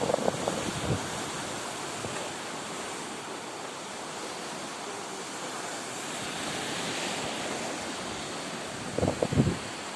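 Sea surf washing steadily on the shore, with wind on the microphone; there is a louder burst right at the start and another about nine seconds in.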